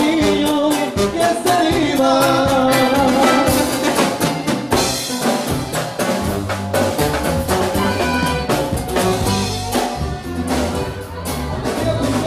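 Live bandeño music from tuba, accordion and drum kit playing an upbeat song over a quick, steady drumbeat.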